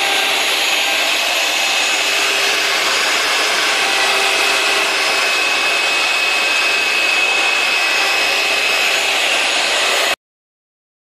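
Shop vacuum motor driving a cyclone dust separator, running steadily with a rush of air and a faint motor whine. It cuts off abruptly about ten seconds in.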